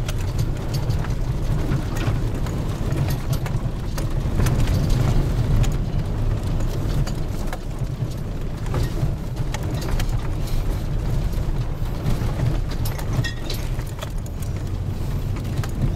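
Hummer 4x4 driving over a rough, snowy trail, heard from inside the cab: a steady low engine and drivetrain rumble with scattered knocks and rattles as it rides over the ruts.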